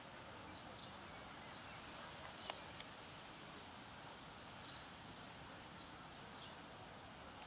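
Quiet outdoor ambience with faint, short bird chirps every second or so, and two sharp clicks close together about two and a half seconds in.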